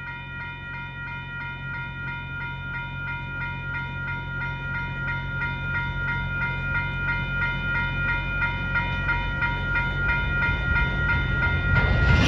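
Railroad crossing bell ringing in a quick steady rhythm while a freight train starts to creep through the crossing. The train's low rumble grows gradually louder, with a louder surge of noise near the end.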